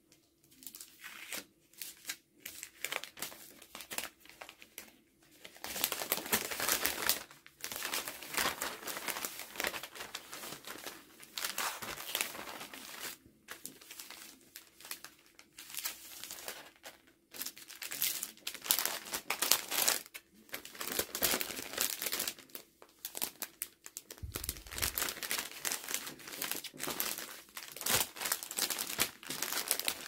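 Clear plastic cellophane bags crinkling in irregular bursts as hands open them and slide a folded scarf inside.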